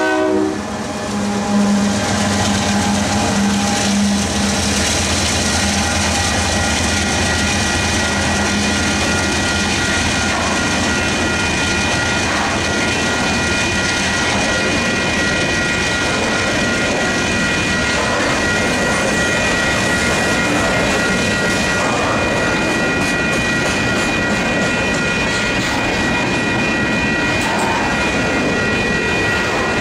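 Union Pacific freight train passing close by. A locomotive horn blast cuts off about half a second in, then the diesel locomotives' engines hum as they go by. After that comes the steady rolling noise of coal hopper cars' wheels on the rails, with a steady high-pitched tone over it.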